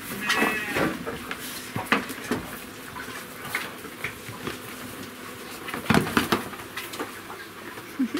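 Piglets moving about on a wooden plank floor with straw: irregular hoof clicks, knocks and scuffs, with a short high-pitched squeal about half a second in and a louder burst of knocking and scuffling around six seconds in.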